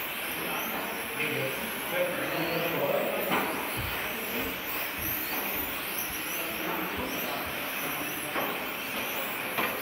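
1/10-scale electric RC touring cars with 17.5-turn brushless motors racing, their high motor whine rising and falling as they accelerate and brake through the bends. A few short knocks come in the middle and near the end.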